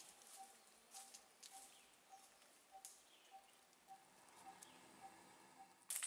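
Faint forest ambience: a bird's soft note repeated steadily, a little under twice a second, with a few faint chirps and light rustles. A brief sharp crackle near the end.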